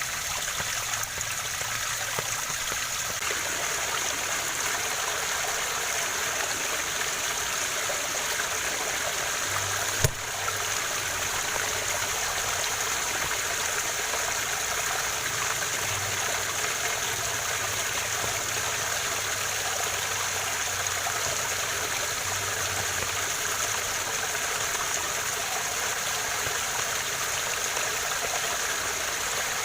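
Waterfall running, a steady rushing hiss of falling water with no let-up. A single sharp click cuts through about ten seconds in.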